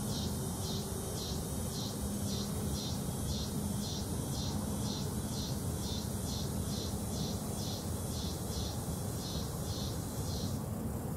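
An insect chirping in a steady rhythm, about two and a half high-pitched pulses a second, that stops shortly before the end, over a steady low rumble.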